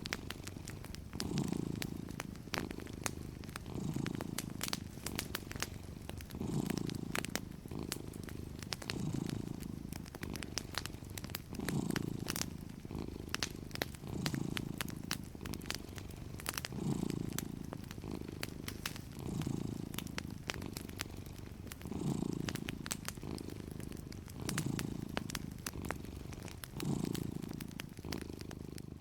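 Domestic cat purring steadily, the purr swelling and easing about every two and a half seconds with each breath, over fireplace crackling: frequent small sharp pops and snaps.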